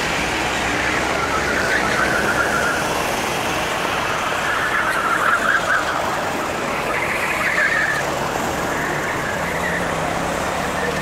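Sodi RT8 rental go-kart engines buzzing as several karts lap the track, their notes rising and falling as they pass, a little louder about five seconds in, over a steady rumble.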